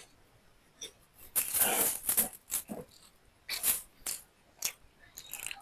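A person eating: chewing and wet mouth smacks in a run of short, irregular bursts. The longest and loudest comes about a second and a half in.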